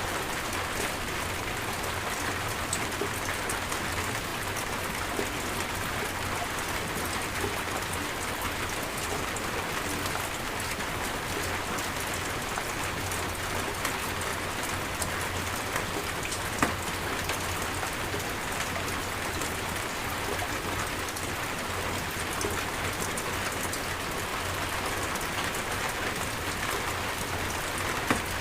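Steady rainstorm, rain falling hard and evenly on surfaces, with a couple of louder single drop impacts.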